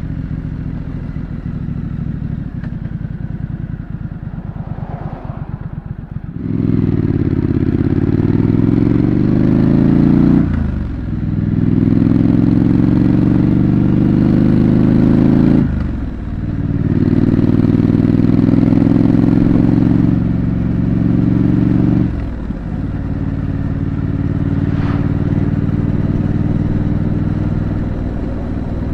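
2025 Triumph Scrambler 900's parallel-twin engine through its stock exhaust. It runs at low revs for about six seconds, then pulls hard up through the gears, with three short dips for gear changes. It settles to a steadier cruise in the last several seconds.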